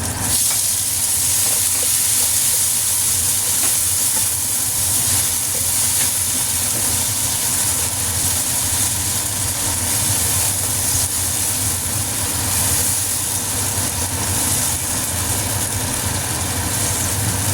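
Chopped tomatoes sizzling steadily in hot oil with fried garlic and ginger. The sizzle surges just as they go in.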